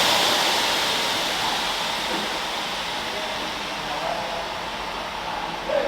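Steady rushing hiss, like spraying water, that sets in abruptly just before and slowly fades.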